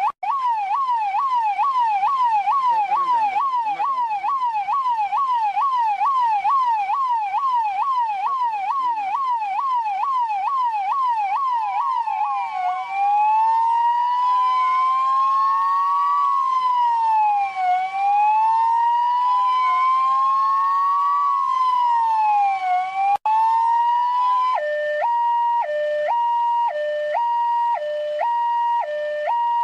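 Russian police car electronic siren switching through its modes. First a fast yelp sweeps up and down about two and a half times a second. About halfway it changes to a slow wail rising and falling every few seconds, and after a brief break near the end it becomes a two-tone hi-lo alternating between a high and a low pitch.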